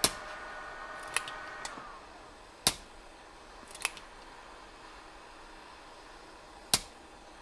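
Hot-air heat gun running with a steady whine, which winds down and stops about two seconds in as it is switched off, after heating the board where the HDMI port was removed. Several sharp, separate clicks and taps of tools on the bench follow through the rest.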